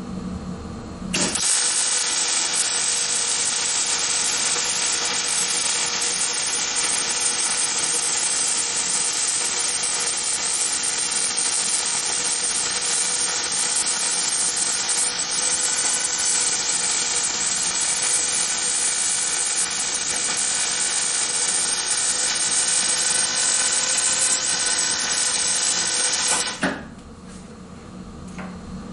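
MIG welding arc on steel: one continuous steady crackling hiss that starts abruptly about a second in and cuts off sharply near the end. A low steady hum is left when the arc stops.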